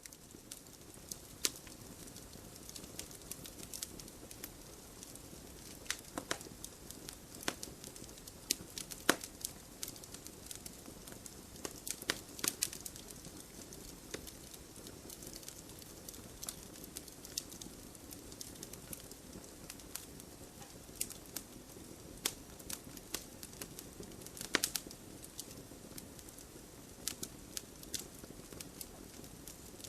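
Wood fire crackling in a fireplace: irregular sharp pops and snaps over a steady low hiss of the flames, with a few much louder pops scattered among the small ones.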